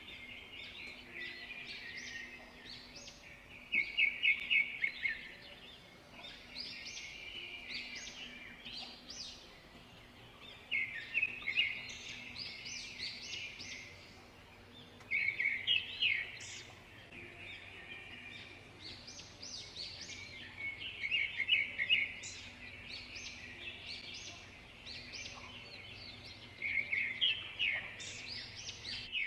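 Birds chirping, with short calls and rapid trills coming in clusters every few seconds, over a faint steady hum.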